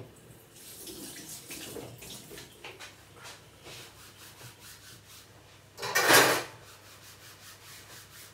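A sponge rubbing back and forth across a plastic chopping board in repeated wiping strokes, with one louder noisy swish about six seconds in.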